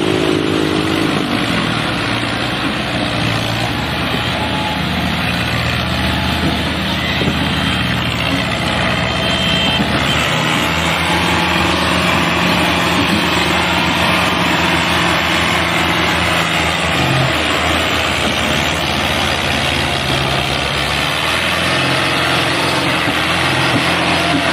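Diesel farm tractor engines running hard under heavy load, hauling high-piled sugarcane trolleys. The engine note steps to a different pitch several times.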